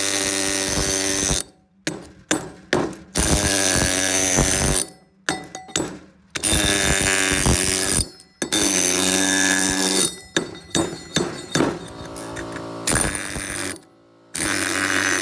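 Pneumatic air hammer with a Thor rock-crushing bit hammering ore in a steel mortar. It fires in bursts of one to two seconds, about six in all, each a rapid, steady hammering, with short pauses between them filled by scattered knocks of the bit on rock and steel.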